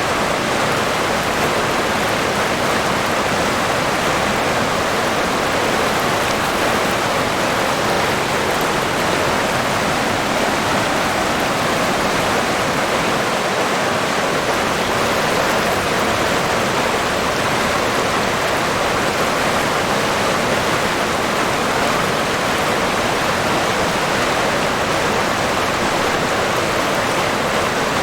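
River water rushing, a steady even rush with no change in level.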